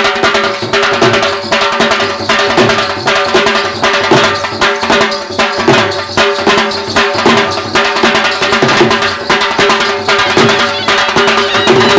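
Live traditional folk dance music: a fast, steady drumbeat under a held melody line.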